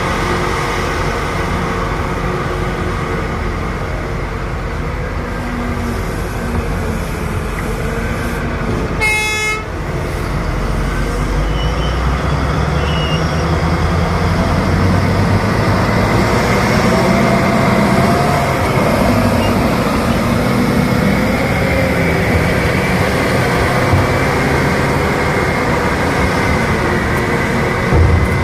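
Heavy diesel machinery of a Caterpillar hydraulic mining shovel loading a Cat 777 haul truck, running steadily and growing louder after about twelve seconds. A horn gives one short blast about nine seconds in.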